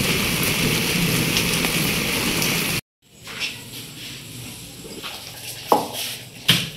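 Heavy rain pouring steadily onto a courtyard, cut off abruptly about three seconds in. Then a quieter room with a few sharp clinks and knocks of dishes being handled, loudest near the end.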